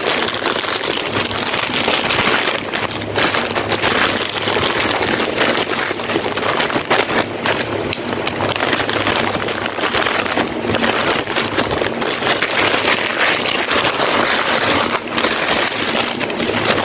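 Plastic packaging crinkling and rustling close to the microphone: a continuous dense crackle of handling and tearing.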